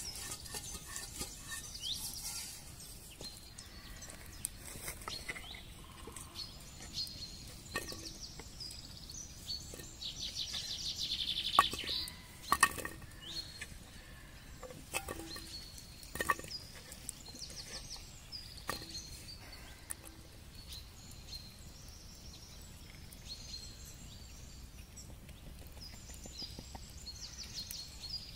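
Small birds chirping and trilling throughout, with a handful of sharp knocks scattered through it, the loudest two about twelve seconds in, as raw potato slices are set into a clay pot.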